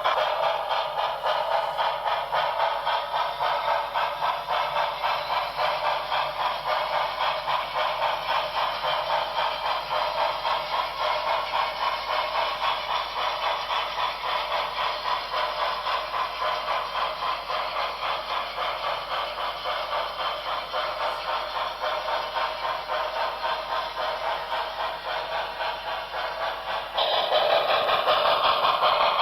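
Sound decoder of an HO scale steam locomotive model playing rhythmic steam chuffing through the model's small speaker, thin with little bass. The level steps up a little near the end.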